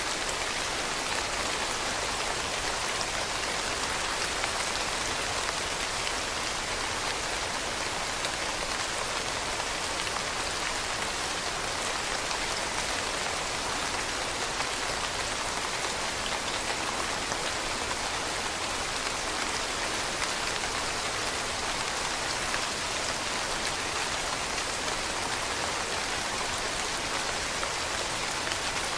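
Steady rain falling on leaves, a dense even hiss with countless fine drop patters.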